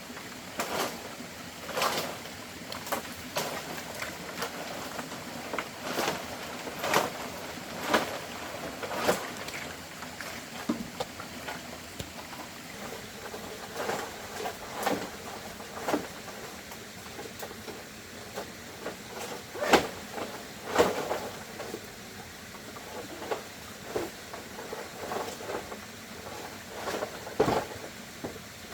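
Irregular knocks and clatters of objects being handled, about one every second or two, over a steady low hiss.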